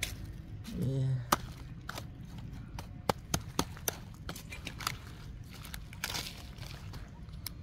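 Irregular crackles and crunches of dry ground debris being stepped on or handled, with a short voice sound about a second in.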